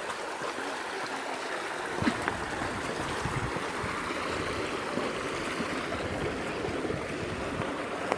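Flowing water of a stream, a steady rushing. From about two seconds in it is joined by a low uneven rumble and a few short knocks.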